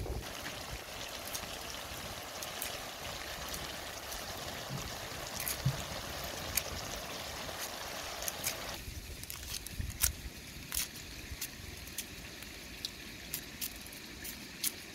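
Chicken, tomatoes and onions simmering in a steel wok over a wood fire: a steady bubbling sizzle that cuts off abruptly about nine seconds in. After it come a few sharp light clicks of a knife peeling an onion.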